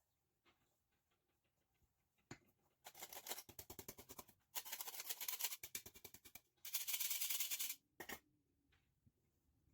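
Three short spells of rapid scraping and rustling from mixing cake batter in a bowl, set off by a sharp click before and after.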